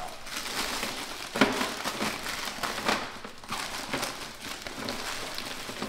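Parchment paper crinkling and rustling as it is gathered up around flash-frozen plum slices on a baking sheet, with irregular sharp crackles, the loudest about a second and a half in.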